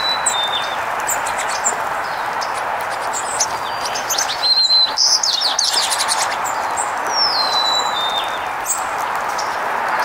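Songbirds chirping and singing: a high whistled song that slides and steps down in pitch at the start and again about three-quarters of the way in, with a burst of quick chirps and a short trill around the middle. A steady background rush runs underneath.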